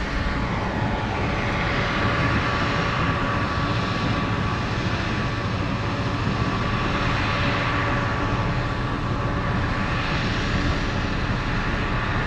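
Car driving along a gravel road: steady tyre and road noise with the engine running underneath.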